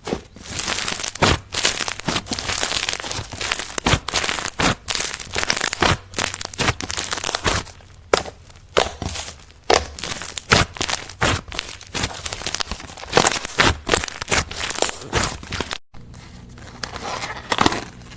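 Slime being squeezed and kneaded by hand: a dense, loud run of crackling, popping clicks that cuts off suddenly about sixteen seconds in, followed by a few quieter squishes.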